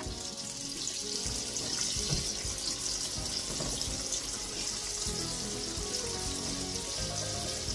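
Pastry hand pies frying in deep hot vegetable oil: a steady sizzling, bubbling hiss, with more pies going into the oil. Background music plays underneath.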